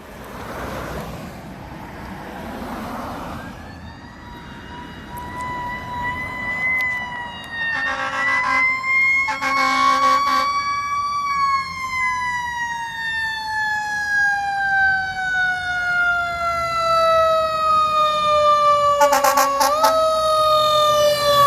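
Fire engine siren winding up slowly in a long rising wail, then winding slowly down, with short blasts of the truck's air horn about a third of the way in, again a couple of seconds later, and near the end.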